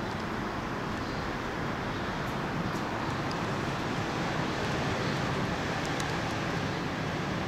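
Steady outdoor background rush, an even hiss of ambient noise with a few faint, short high clicks.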